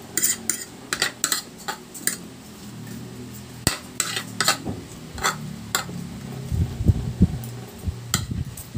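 Metal spoon and fork clinking and scraping against a ceramic plate while scooping rice, in short irregular clinks throughout.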